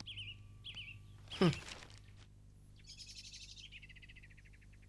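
Birds calling in the open: a short warbling chirp repeated about every half second, then about two seconds of rapid trilled notes stepping down in pitch. About a second and a half in, a loud sweep slides steeply down in pitch.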